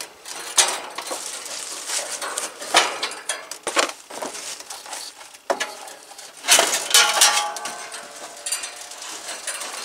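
Sheet-metal top cover of a heat pump's outdoor unit, with the fan hanging beneath it, clanking and scraping against the cabinet as it is lifted and tipped open. The loudest clatter comes about six and a half seconds in, followed by a short metallic ring.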